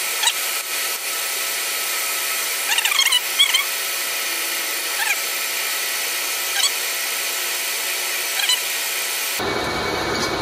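Lathe grooving a steel shaft under flood coolant: a steady machine whine and hiss, with short squealing chirps from the cutting tool every second or two. About nine seconds in, the sound changes abruptly to a lower hum.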